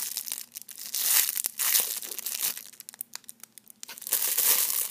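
Thin clear plastic packaging around a foam squishy toy crinkling as it is handled, in dense crackly bursts. It goes quieter about two and a half seconds in, then crinkles loudly again near the end.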